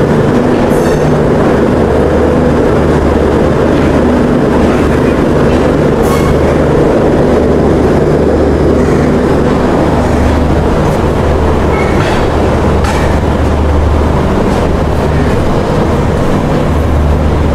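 A passenger train pulling out of a station, heard from inside its rear coach: a steady low hum from the running train, with a few light clicks of the wheels over rail joints.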